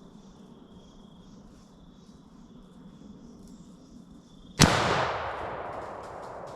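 A single rifle shot about four and a half seconds in, its echo rolling away over the next couple of seconds. Before it, an insect buzzes steadily.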